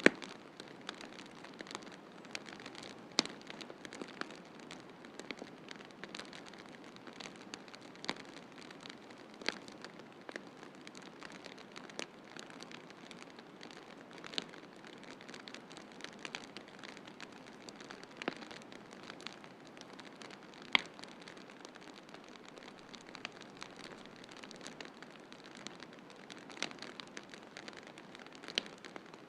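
Wood fire in a fireplace crackling over a steady hiss, with scattered sharp pops, a few much louder than the rest.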